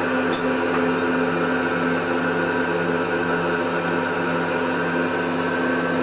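Crankshaft grinding machine running with a steady mechanical hum while an engine crankshaft is mounted for regrinding, with a single sharp click just after the start.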